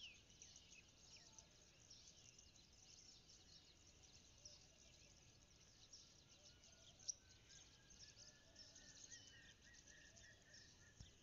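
Faint chirping of many small birds, with one brief louder chirp about seven seconds in.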